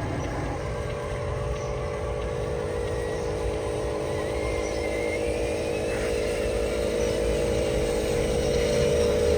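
Radio-controlled model truck running: a steady motor hum over a low rumble, with a faint higher whine rising in pitch in the middle.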